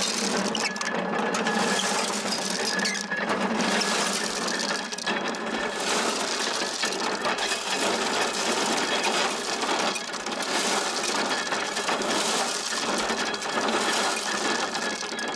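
Hand-cranked corn sheller being turned, a steady mechanical rattle as ears of maize are stripped of their kernels, the kernels falling out and the bare cobs thrown aside.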